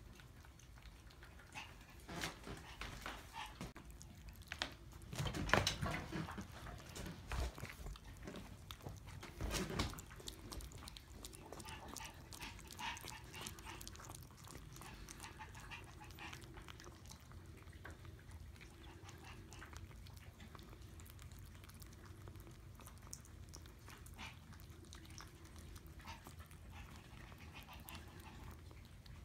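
Month-old Maltese puppies whimpering and yipping softly, with scuffling and chewing noises as they eat from a bowl and play. The louder bursts come about five to six seconds in and again around ten seconds.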